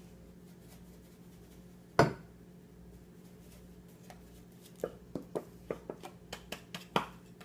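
Kitchen clatter while pepper is added to a sauce in a pan: one sharp knock about two seconds in, then a quick, uneven run of light clicks and taps near the end.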